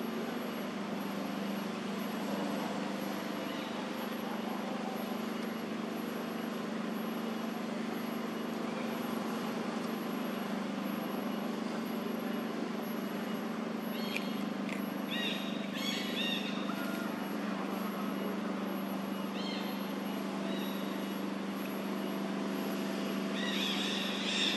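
Steady outdoor background noise with a low, even hum. From about halfway, several short high chirps come in small clusters, with another group near the end.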